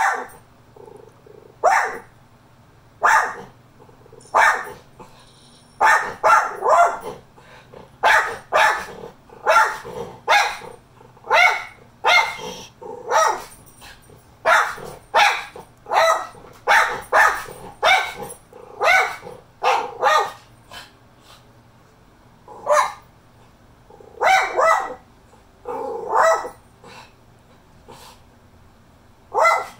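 Miniature schnauzer barking repeatedly, alert barks at another dog outside the window, some single and some in quick runs of two or three, with a short lull about two-thirds of the way through.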